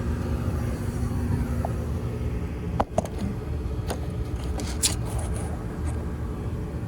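Gas furnace running with its burners lit: a steady low rumble of flame and draft-inducer motor hum, with a few sharp clicks about midway. The technician thinks the flame sounds weak and suspects low gas pressure from a half-inch supply line that is far too long.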